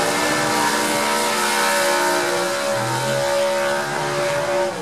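A drag car's V8 engine running hard at high, held revs, with a slight rise in pitch a couple of times and a loud hiss of exhaust over it. It cuts off abruptly at the end.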